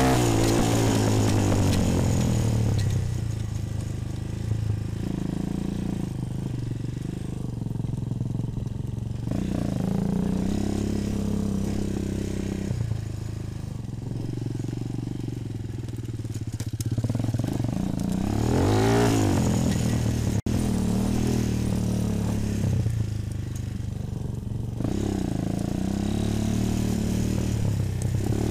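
Bashan 250 quad's engine running under way, revving up and easing off several times, with its sharpest rise and fall about nineteen seconds in.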